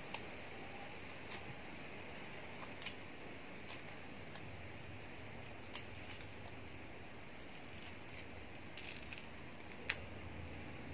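Fingers peeling the rind off a sweet orange: scattered small snaps and tearing crackles over a steady faint hiss, the sharpest snap near the end.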